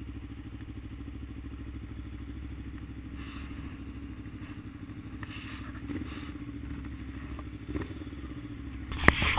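Motorcycle engine running at low revs in slow traffic, with a steady even pulse. Near the end comes a brief burst of loud knocks and rattles.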